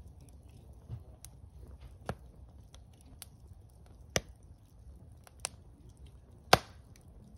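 Wood campfire crackling, with sharp pops scattered through it, the loudest near the end, over a low steady rumble.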